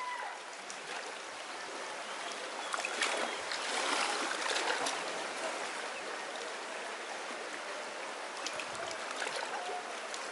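Shallow, fast river current running over a riffle: a steady wash of moving water that swells a little a few seconds in.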